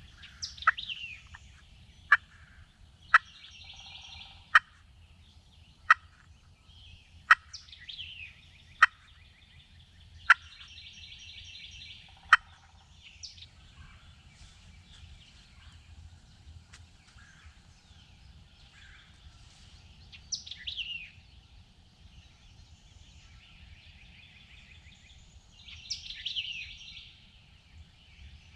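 Eastern wild turkey gobbling several times in the distance, among other bird calls. Over the first dozen seconds a series of about nine sharp clicks comes roughly every second and a half, and these are the loudest sounds.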